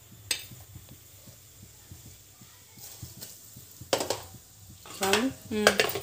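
A metal spoon clinking against steel and aluminium vessels as salt and red chilli powder are spooned into a pressure cooker: a handful of sharp clinks, one about a third of a second in and the rest in the last two seconds.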